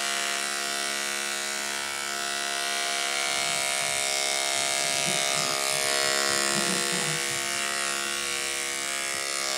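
Andis AGC2 ProClip two-speed electric dog clippers running with a steady hum as they trim the hair between a dog's paw pads.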